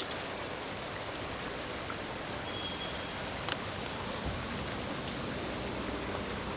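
Steady, even outdoor background noise with no distinct source, and a light click about three and a half seconds in.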